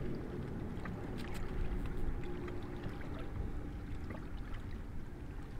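Small lake waves lapping and sloshing against riprap rocks at the waterline, a steady watery wash with a few light clicks.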